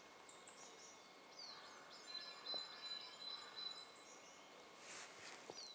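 Faint birdsong over quiet outdoor background noise: a few short, high, downward-sweeping chirps and a held high whistled note in the middle.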